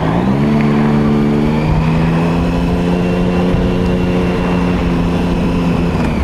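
Triumph Sprint ST1050's three-cylinder engine running under way, with wind noise. The revs pick up at the start and again slightly a second or so later, then hold a steady note, and drop near the end.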